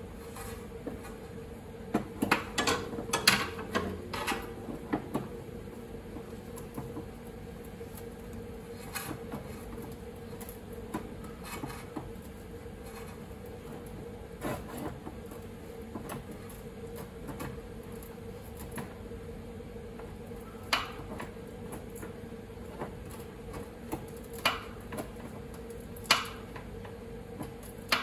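Scattered metallic clicks and clinks of sheet-metal grip pliers working a car's rolled-in rear fender lip, levering it back out. A quick cluster comes about two seconds in, then single sharp clicks every few seconds over a steady low hum.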